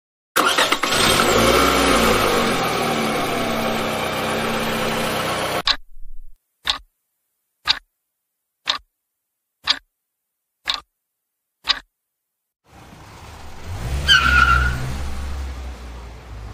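Car sound effects: an engine starts suddenly and drives off, with its pitch gliding. Then come seven sharp ticks about a second apart. A car then pulls in, with a brief high squeal falling in pitch.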